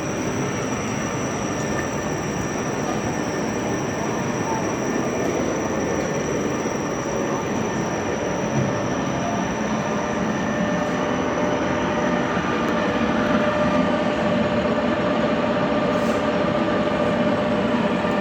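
Machine tool cutting metal: a continuous grinding, screeching run with faint steady whines, growing a little louder after about twelve seconds.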